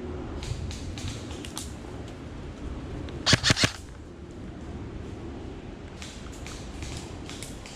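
An airsoft gun firing three quick shots a little over three seconds in, over faint rustling and scattered small crackles.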